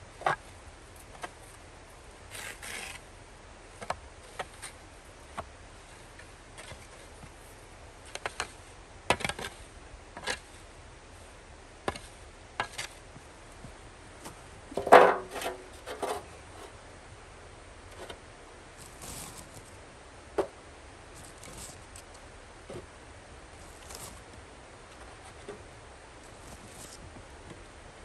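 A spade scraping and scooping snow, then about halfway a round metal pan set down with a short clank that rings briefly. After that come scattered knocks of wooden blocks being stacked on it.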